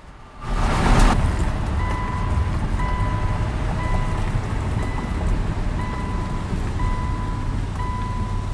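A vehicle's electronic warning beeper sounding about once a second over a steady low engine and road rumble, after a loud rush about half a second in.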